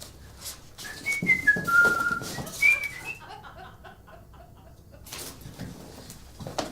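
A person whistling a short tune of a few clear notes, with scattered clicks and knocks around it.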